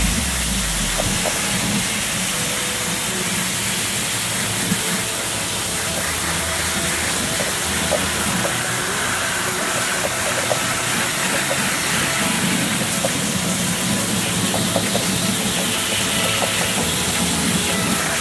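A steady hiss with faint scattered clicks.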